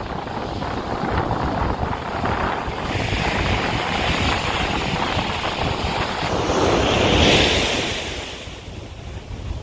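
Ocean surf breaking and washing up a sandy beach, with wind buffeting the microphone. The wash swells to its loudest about seven seconds in, then falls away.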